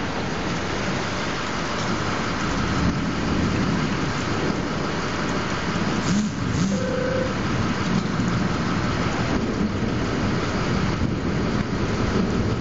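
Thunderstorm: rain falling steadily under a low, continuous rumble.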